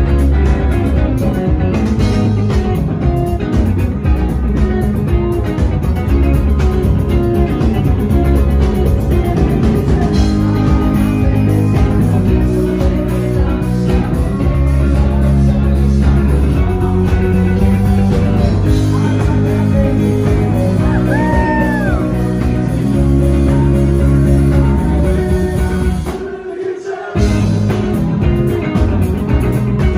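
Live jam band playing loudly through the venue PA: electric guitars, bass and drums in a rock jam, heard close to the stage. The sound drops out for about a second near the end.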